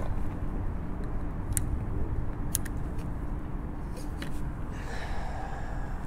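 Steady low rumble of distant traffic, with a few faint, sharp clicks.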